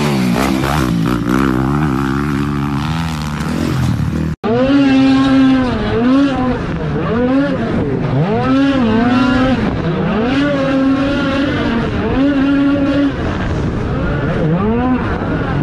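Dirt bike engine revving hard through a jump, then, after a cut, a dirt bike engine heard close up, its pitch rising and falling again and again as the rider blips the throttle over ridged snow.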